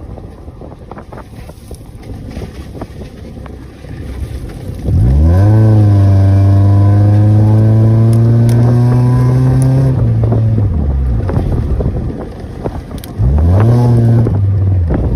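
Honda Orthia's exhaust through its muffler: the engine idles, is revved up sharply about five seconds in and held high for about five seconds, then drops back to idle. A second short rev comes near the end.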